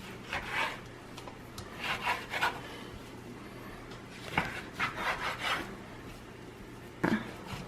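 Kitchen knife sawing back and forth through a raw beef chuck roast, in several short bouts of scraping strokes. The knife is one the cooks call not that great, so it saws rather than slicing cleanly.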